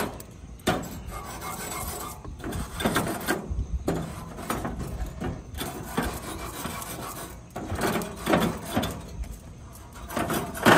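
Bristle-free coiled-wire grill brush scrubbing back and forth across metal grill grates: a rasping scrape in repeated, uneven strokes.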